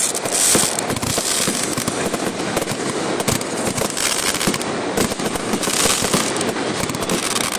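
Aerial fireworks display: a dense, continuous barrage of bursting shells and crackling with no break.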